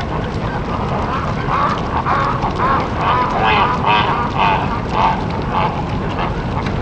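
A bird calling in a series of short, pitched calls, about two a second, over a steady background rush.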